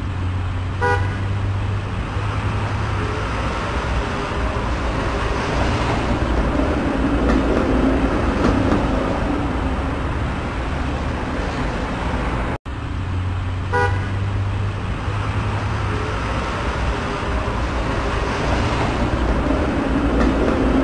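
Steady street traffic noise with a car horn tooting briefly about a second in. The sound drops out for an instant just before 13 s, then the same stretch plays again with the horn toot repeated.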